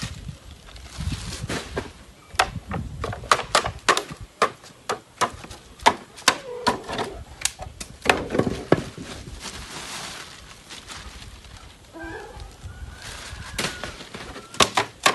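A series of irregular sharp clicks and knocks, about one or two a second, with a brief faint wavering pitched sound near the end.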